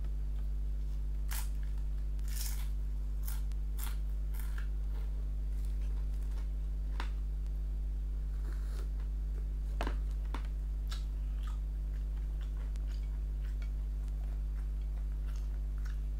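Eating sounds from mutton biryani eaten by hand: scattered short wet clicks and crackles of chewing, lip smacks and fingers working the rice, over a steady low hum.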